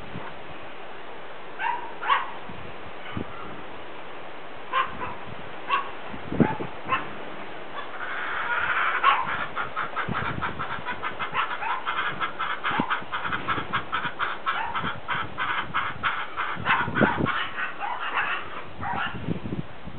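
Animal calls: a few separate short calls, then from about eight seconds in a long quick run of short calls, several a second, lasting about ten seconds.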